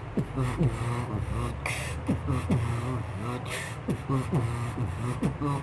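Vocal beatboxing freestyle: kick-drum-like thumps that drop in pitch, pitched mouth-bass tones over a steady low hum, and two snare-like hisses about two seconds apart.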